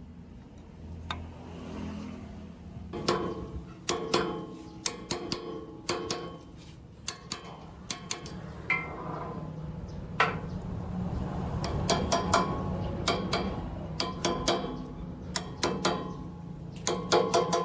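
Metal tools and parts being handled: irregular sharp metallic taps and clicks, often in quick clusters of two to four, each with a short ring, over a steady low hum.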